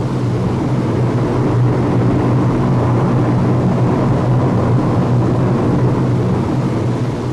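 Lockheed Hercules' four turboprop engines running steadily in flight: an even, low drone with a wash of propeller and air noise over it.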